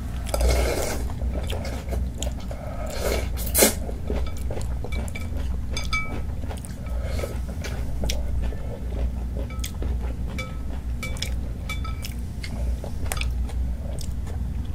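Close-miked chewing of noodles and kimchi, with small clicks of utensils against dishes. Two louder noisy bursts stand out, one just after the start and one about three and a half seconds in.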